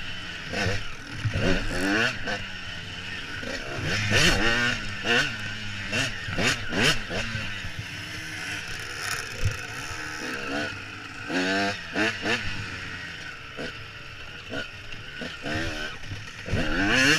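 Dirt bike engine heard from the rider's helmet, revving up in repeated rising sweeps as the throttle is opened and shut through the turns and gear changes.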